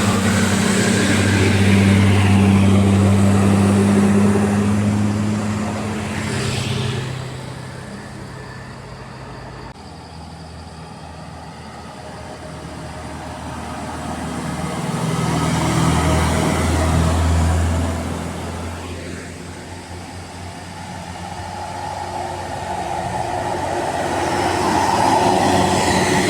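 Buses' diesel engines droning as they pass one after another on an uphill road. The drone swells and fades three times: loudest near the start, again a little past the middle, and building again near the end.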